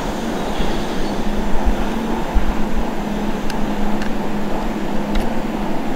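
Vulcan Foundry 0-4-0 diesel shunter running steadily while it slowly pushes a 1959 Northern Line driving trailer, with wheels rumbling low on the rails. A couple of faint clicks come over it in the second half.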